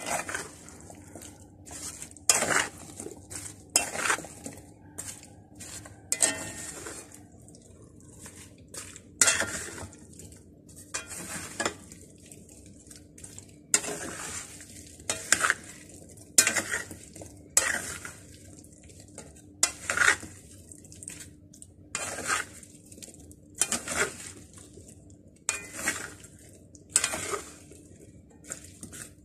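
A spatula stirring a mayonnaise-dressed salad in a non-stick pan, scraping and knocking against the pan in repeated strokes about once every second or two.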